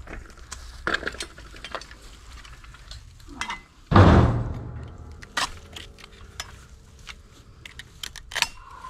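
Tubular metal folding lawn chair frames clattering and clinking as they are handled and pulled apart, with one loud clank about four seconds in that rings on and fades, and a few sharper knocks later.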